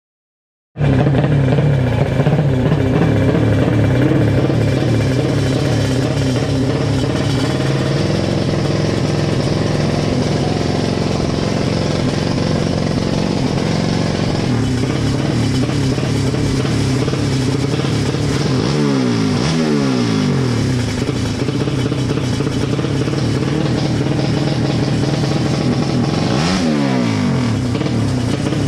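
Four-stroke drag-race motorcycle engine (underbone with a horizontal engine) running loudly at the start line, starting about a second in; the revs sweep down and up twice, about two-thirds of the way through and again near the end.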